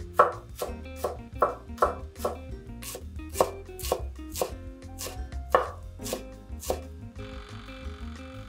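Kitchen knife slicing myoga (Japanese ginger) on a wooden cutting board: a steady run of crisp strokes through the bulbs onto the board, about two or three a second. The chopping stops about seven seconds in, leaving a faint even hiss.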